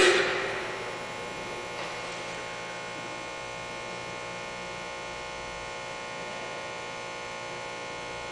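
Steady electrical hum made of many fixed tones. At the very start, a sharp knock rings out and fades over about a second.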